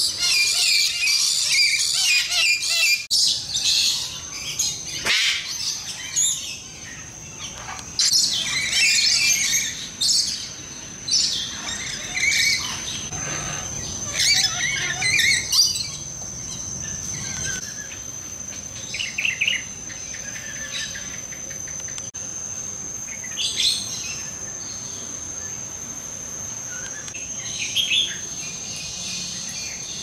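Many birds chirping and calling in an aviary, a dense mix of short high calls that thins out after the first half, over a steady thin high tone.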